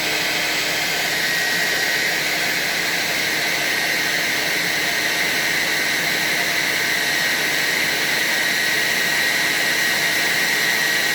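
Hair dryer running steadily, blowing hot air at a heat-detector alarm to set it off: an even rush of air with a thin, steady high whine.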